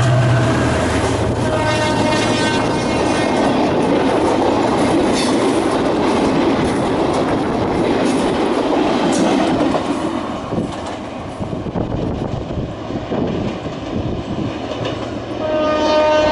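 EMD GT22 diesel locomotive passing close, its horn chord cutting off just after the start. Its passenger coaches then rattle past with wheels knocking over the rail joints. The level drops as the train draws away, and near the end the horn sounds a steady chord again.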